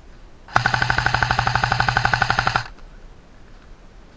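Airsoft rifle firing one full-auto burst of about two seconds: a rapid, even string of shots over a steady low hum, cutting off sharply.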